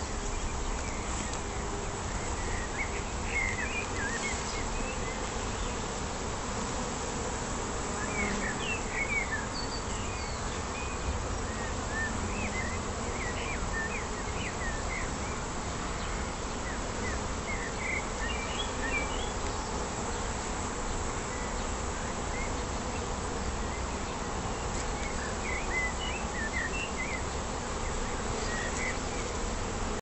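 A honeybee colony in an opened box hive buzzing steadily, thousands of bees covering the combs they are building.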